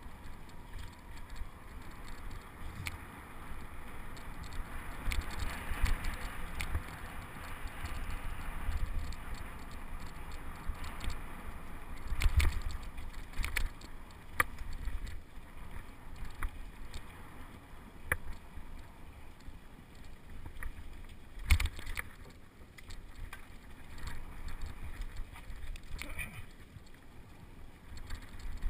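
Mountain bike riding down a dirt singletrack, heard from a helmet-mounted camera: tyres rolling over dirt and leaves with wind rumble on the microphone, and scattered sharp knocks and rattles from the bike over bumps. The loudest knocks come about 12 and 21 seconds in.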